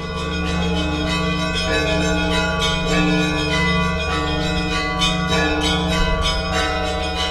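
Orthodox church bells ringing: smaller bells struck in a quick, busy pattern over the steady hum of a large bell.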